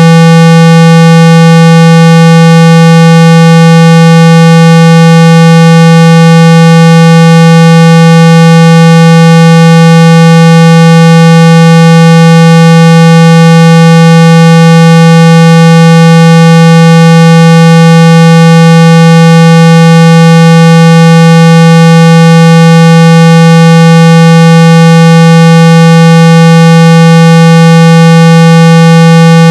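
A steady, unbroken 165 Hz electronic tone at very high level, with fainter overtones above it, a speaker-cleaning tone played to vibrate water and dust out of a phone's loudspeaker.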